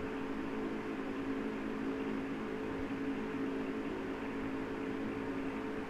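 A small motor humming steadily, with several low droning tones that hold even and do not change.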